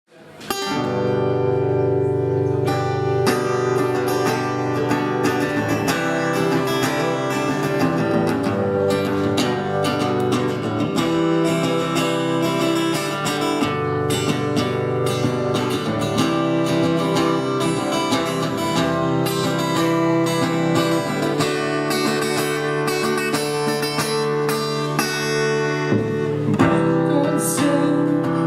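Acoustic guitar playing the instrumental intro of a song, steady and continuous with a sustained low bass underneath, starting abruptly at the beginning.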